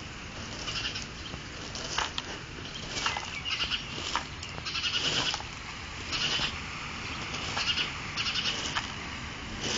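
An animal making short, high-pitched, fluttering calls, about one a second.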